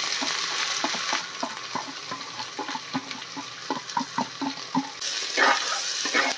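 Sliced onions sizzling and crackling as they drop into hot mustard oil in an aluminium pressure cooker, a steady hiss dotted with many small pops, with a few louder bursts near the end.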